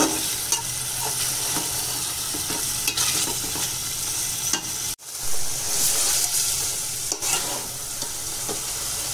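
Broiler chicken pieces sizzling in hot, oily spice paste in a metal pot, stirred and scraped with a metal spatula, with scattered clicks of the spatula on the pot. The meat is being coated in the masala over high heat. The sound cuts out for an instant about five seconds in.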